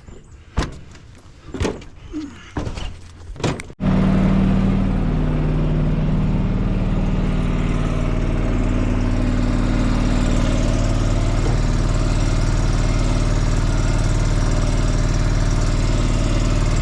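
A few clicks and knocks, then about four seconds in a motor starts abruptly and runs steadily, going chug chug.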